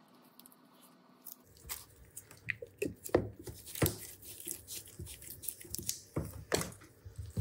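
Close-up handling noise: irregular clicks, taps and rustles of varying loudness that begin about a second and a half in, after a faint steady hum.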